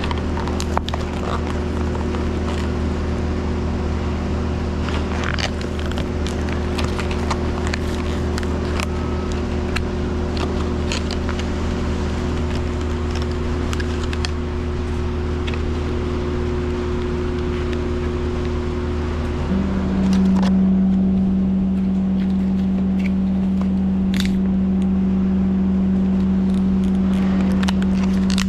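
Small clicks and light rattles of a Doyle 14-in-1 precision screwdriver's bits and nut drivers being handled, over a steady low hum that gets louder about twenty seconds in.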